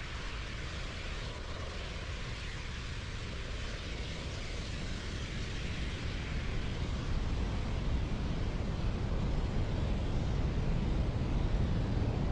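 Distant roar of a Falcon 9 rocket's nine Merlin engines during ascent: a steady low rumble that grows gradually louder over the last several seconds.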